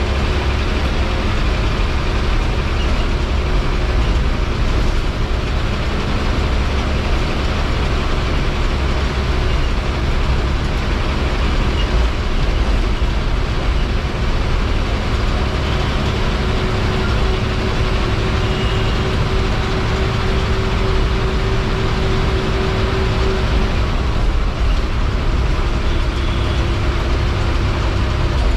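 Ashok Leyland diesel bus engine running steadily under way, heard from inside the driver's cabin together with road noise.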